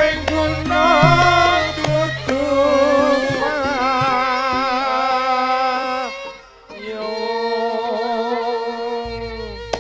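Javanese gamelan music for a tayub performance, with a female singer's long, wavering held notes over steady instrumental tones. The voice breaks off briefly about six and a half seconds in, then comes back for one last long held phrase.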